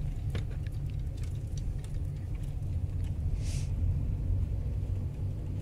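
Car engine and road rumble heard from inside the cabin while driving, steady and low, with a few faint clicks and a brief hiss about three and a half seconds in.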